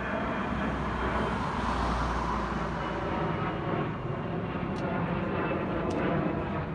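A vehicle engine running steadily. A broad swell of noise rises and falls about one to three seconds in, and a few light clicks come near the end.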